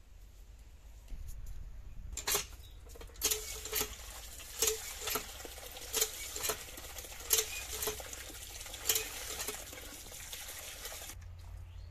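Hand pump being worked: water gushes from the spout into a steel bowl, surging with each stroke of the handle, and the pump gives a short squeak at each stroke, roughly every second. It starts about two seconds in and stops shortly before the end.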